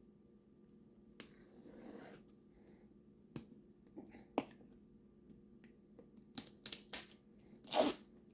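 Cardboard box being opened by hand: its seal cut and the box handled, giving scattered sharp clicks and scrapes that come thicker in the last two seconds, ending with a louder rasping scrape.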